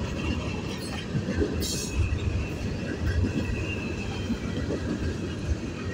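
Freight cars of a passing manifest train rolling by: a steady low rumble of wheels on rail, with a faint high squeal from the wheels and a short hiss a little under two seconds in.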